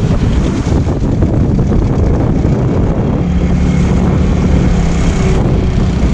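Outboard motor running steadily, pushing a small boat along at trolling speed, with wind buffeting the microphone and water rushing past the hull. The motor's hum gets stronger about halfway through.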